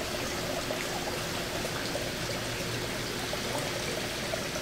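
Water running and pouring steadily, with a faint steady hum underneath.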